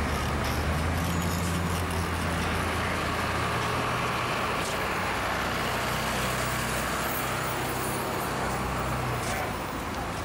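School bus engine running steadily close by: a low, even engine drone that eases off a little near the end.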